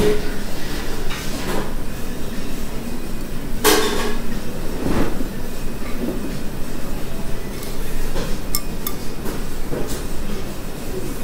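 Steady background rumble of a ramen shop, with a few brief clinks of a spoon and chopsticks against a ceramic ramen bowl, the clearest about four seconds in.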